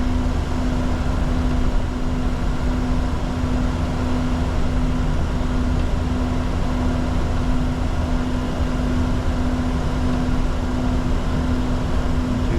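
Steady cockpit noise of a Bombardier Challenger 604 business jet under way: an even rush with a constant low rumble and a steady hum, unchanging throughout.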